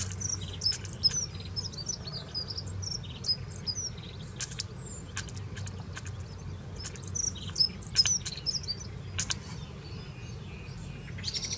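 Hen pheasant's beak pecking wheat grain from a small plastic pot held in the hand: sharp, irregular clicks. Small birds chirp in the background, twittering through the first few seconds and again about seven seconds in.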